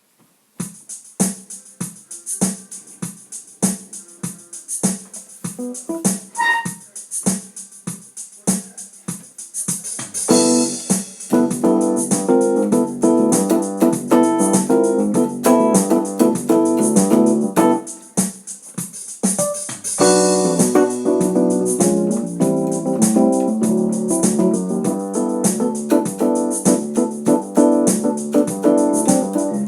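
Electronic keyboard music. A steady percussion beat starts alone, and piano-like keyboard chords and melody join about a third of the way in. The chords thin out briefly about two-thirds through, then come back.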